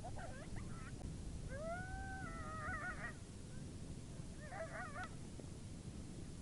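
Coyote howls and yips: a quick burst of yips, then a rising howl that breaks into a wavering yodel, then another short burst of yips, over steady low background noise.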